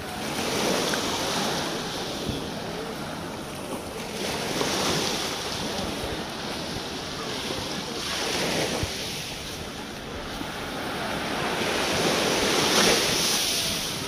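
Small sea waves washing up on a sandy beach, the surf swelling about every four seconds, four times in all.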